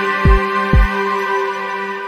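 Background music: a sustained, layered pad with a deep thump about twice a second. The thumps stop about a second in and the music begins to fade.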